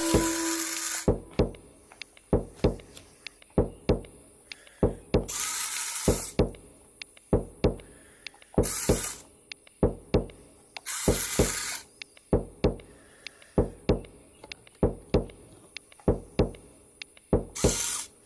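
Background music with a steady beat of sharp drum hits, often in pairs, and short hissing swells every few seconds.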